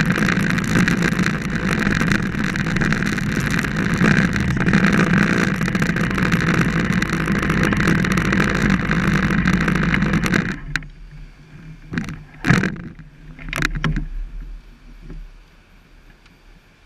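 Motorcycle riding at speed: wind rushing over the handlebar action-camera microphone, mixed with engine and road noise. About ten seconds in it drops sharply to a low rumble, with a few short knocks.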